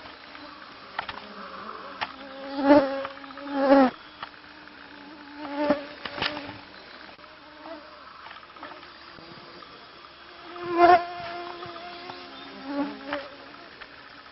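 Flying insects buzzing close to the microphone: a steady hum with several louder passes that swell and fade as an insect flies right by.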